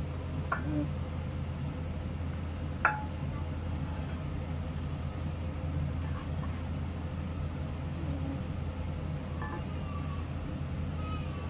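A ladle knocking against a cooking pot, once sharply about three seconds in and with a lighter click near the start, over a steady low hum.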